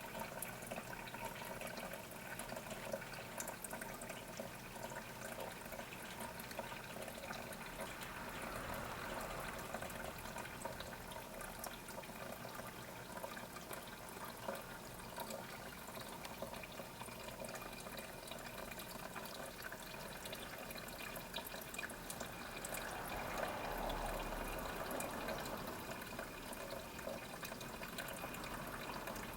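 Small pump-fed waterfall in a moss terrarium, water trickling and splashing steadily, growing a little louder twice.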